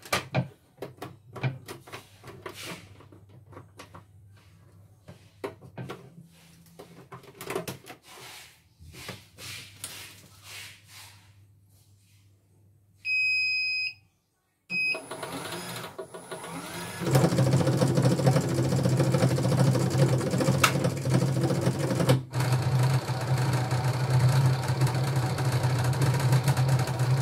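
Light clicks of handling on an opened CNY portable embroidery machine, then a beep about halfway through. From about two-thirds of the way in, the machine's motor runs steadily with a loud, even hum, and a short beep sounds near the end.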